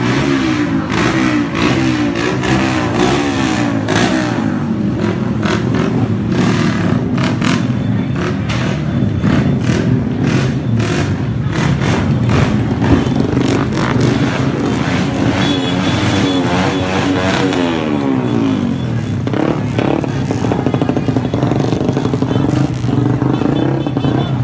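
Motorcycles of a convoy being revved hard, several engines at once, their pitch rising and falling over and over, with many sharp crackles through the first half and a long falling rev late on.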